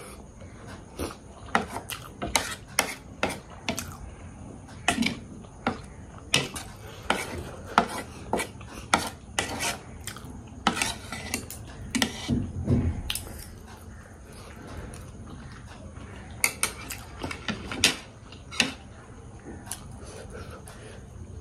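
Eating utensils clinking and tapping against a dish while someone eats, a long run of irregular sharp clicks with short pauses.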